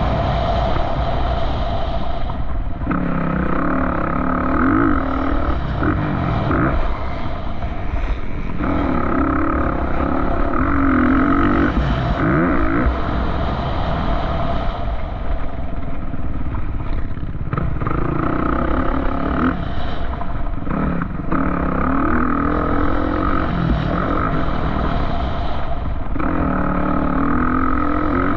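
Off-road vehicle engine running under changing throttle, its pitch rising and falling again and again over a steady low rumble.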